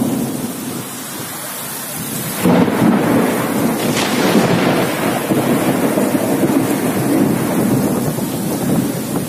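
Heavy rain pouring down in a pre-monsoon nor'wester (Kalbaisakhi) thunderstorm, with gusting wind and a continuous rumble. The sound swells suddenly louder about two and a half seconds in and stays loud.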